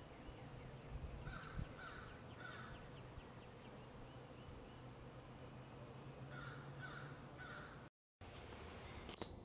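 Crow cawing: two series of three harsh caws, the first about a second in and the second after about six seconds, over a faint low steady hum.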